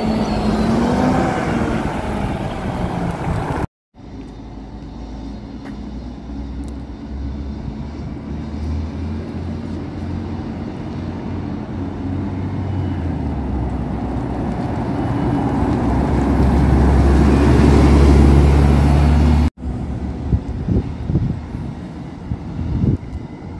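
Articulated city buses running past in the street. First a bus passes close by, its engine note rising and falling. After a cut another bus approaches, its engine growing steadily louder as it nears, and it cuts off abruptly near the end to quieter street traffic with a few knocks.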